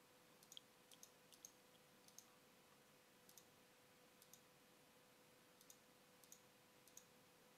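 Near silence: quiet room tone with a faint steady hum and about a dozen faint, irregular clicks.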